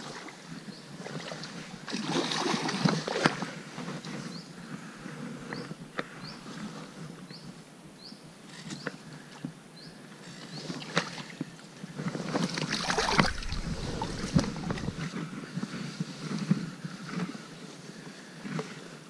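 A hooked sea trout splashing and thrashing at the water's surface as it is played in to the bank, in two bouts: about two seconds in for a second or so, and again around twelve to fifteen seconds in.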